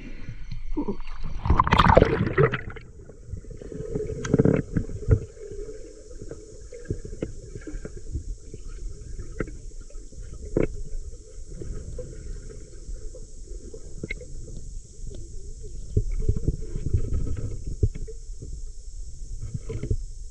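Water and bubbles heard underwater through a camera's waterproof housing: a muffled rumbling wash with scattered clicks and knocks, and a louder rushing burst about two seconds in.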